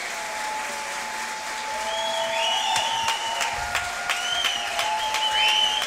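Theatre audience applauding and cheering, with short rising-and-falling cheers over the clapping; the applause swells about two seconds in.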